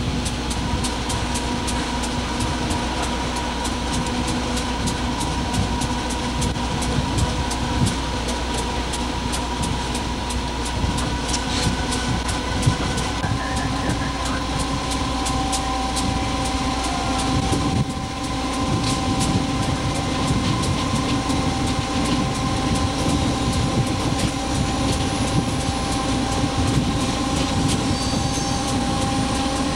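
Running noise heard inside the cab of an EMD GF6C electric locomotive under way: a steady rumble with several steady humming tones, and light clicking of the wheels on the track.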